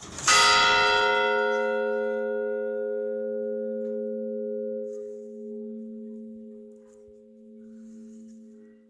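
A bell struck once, about a third of a second in. The bright clang's higher tones fade within a few seconds, while its low hum rings on, slowly pulsing as it dies away.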